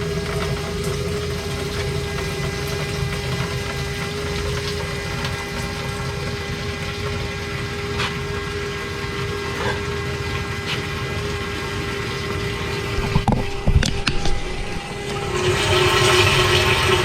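Electric fuel pump running with a steady whine, pumping gasoline out through a disconnected fuel line into a gas can with a liquid rushing noise. There are a few knocks about 13 to 14 seconds in, and the rushing grows louder near the end.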